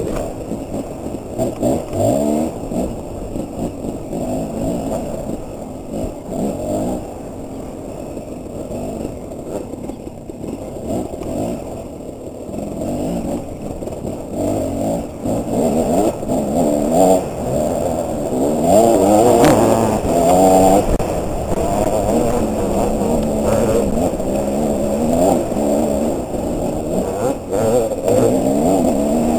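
KTM dirt bike engine being ridden hard on a trail, its pitch repeatedly rising and falling as the throttle is worked and gears change, loudest about two-thirds of the way through.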